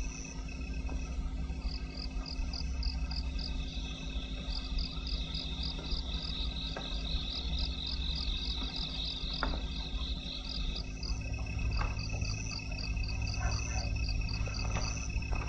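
Crickets chirping in short, evenly spaced pulses, about four a second, with a denser trill from about four to ten seconds in, over a steady low hum.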